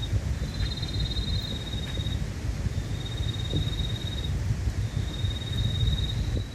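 A calling insect trilling high and steadily in three stretches of about a second and a half each, over a steady low rumble.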